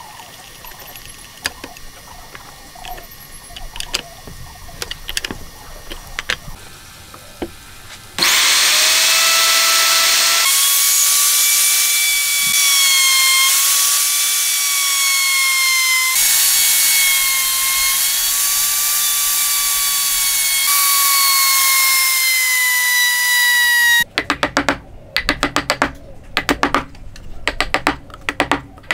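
Light clicks and taps of metal parts as a bit is fitted into an electric plunge router, then the router's motor runs with a loud, steady high whine for about sixteen seconds. Near the end, a quick series of sharp knocks: a wooden mallet driving a chisel into the wood.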